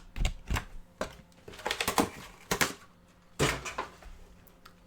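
Trading cards being handled and set down on a table: a series of irregular sharp taps and clicks.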